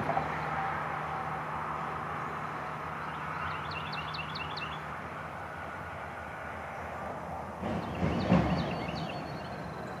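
A small songbird sings a short run of about six high, evenly spaced notes, once about four seconds in and again near the end, over a steady low hum. About eight seconds in, a louder rough noise lasting about a second stands out.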